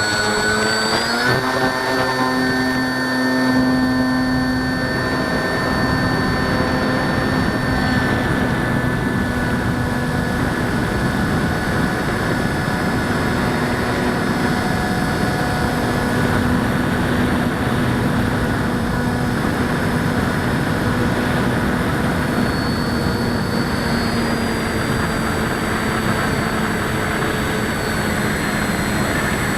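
Electric motor and propeller of a ParkZone Sport Cub RC airplane running under power, a steady whine that steps up in pitch about a second in and then shifts slightly as the throttle is worked.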